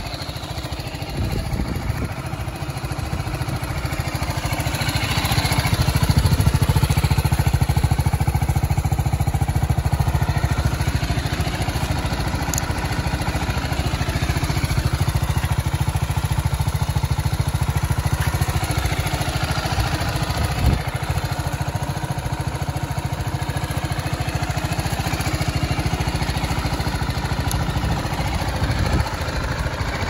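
BMW G 310 GS single-cylinder engine idling steadily in neutral. It gets louder over the first few seconds, then holds an even level.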